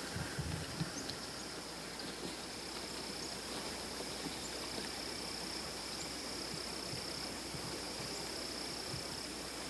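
Steady, high-pitched insect chorus: one even, unbroken trill at a single pitch, with a few soft low thumps in the first second.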